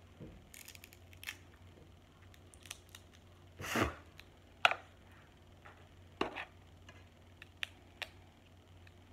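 Crab shells being cracked and picked apart by hand: a string of sharp snaps and clicks, one every second or so, with a short crunch just before the loudest snap about halfway through.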